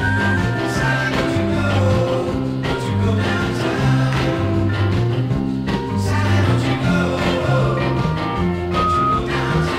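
A 1967 pop-rock single playing: full band music with a bass line stepping through held notes in a steady rhythm.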